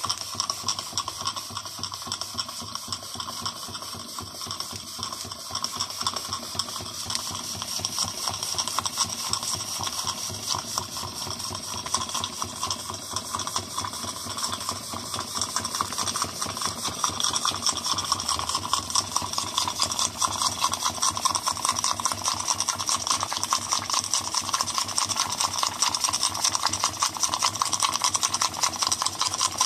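Model double-acting static steam engine with a slip-eccentric valve gear running fast: a rapid, even chuffing and mechanical clatter over a steady hiss, growing louder about halfway through.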